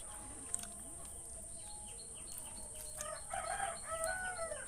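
A steady high-pitched insect drone with a regular chirping, and a bird calling in a few pitched notes during the last second and a half.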